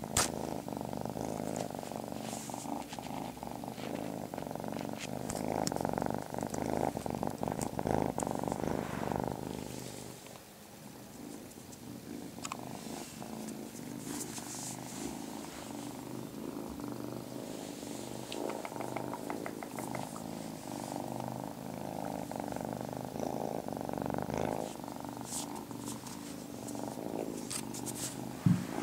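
Ginger kitten purring, a big, steady purr that softens a little after about ten seconds, with faint rustling of fur against a hand and a short bump near the end.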